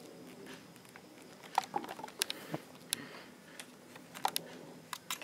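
Kitten playing: scattered light taps, clicks and scratchy rustles, in two flurries, the first about one and a half seconds in and the second near the end.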